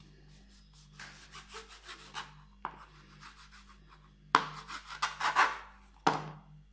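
Kitchen knife sawing through a stack of thin samosa pastry sheets on a plastic cutting board: runs of quick rasping strokes, about five a second, loudest from about four and a half to five and a half seconds in, with one more sharp stroke near the end.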